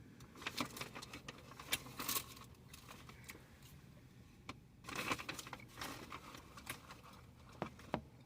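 Crinkling and rustling of fast-food wrapper paper in two spells, about half a second in and again around five seconds in, with scattered sharp little clicks.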